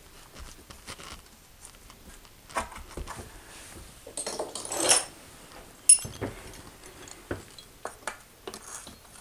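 Glass mosaic tiles clinking and ticking as they are set and shifted by hand into thinset mortar, with a louder scraping rustle about four to five seconds in and one sharp click near six seconds.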